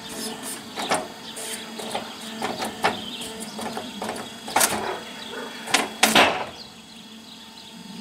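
Scattered knocks and clanks over a faint steady hum from the Puma EA hydraulic band sawmill's machinery. The loudest knocks come a little past halfway, and it goes quieter for the last second or so.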